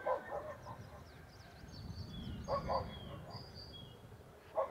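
A dog barking in short double barks, a pair about every two seconds, with small birds chirping.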